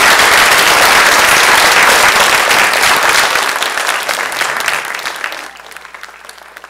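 Audience applauding: dense, loud clapping that fades after about four seconds and dies away to a few scattered claps near the end.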